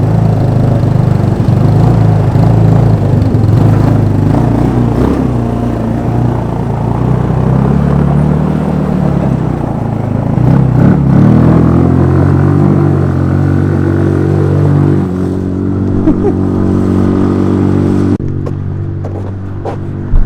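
150cc GY6 four-stroke scooter engine in a converted Power Wheels Jeep running under throttle, its pitch rising and falling as it revs. It holds a steady note for a while, then falls away near the end as the throttle comes off.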